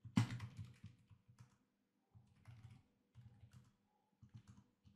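Computer keyboard typing in short bursts of keystrokes, with one louder key strike just after the start. The keys are entering a short shell command and then a password.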